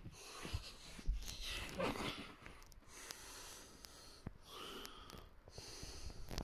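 Faint, uneven breaths and sniffs close to the microphone, with a few light handling knocks.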